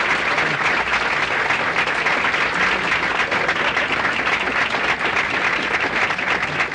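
Audience applauding: many people clapping in a dense, steady wash.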